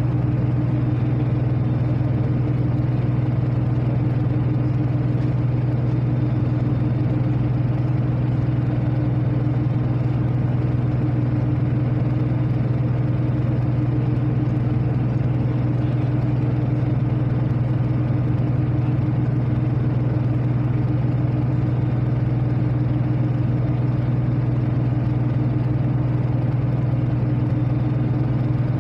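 Ship's diesel engine running steadily, heard aboard the vessel as an even, unbroken low drone with a steady hum.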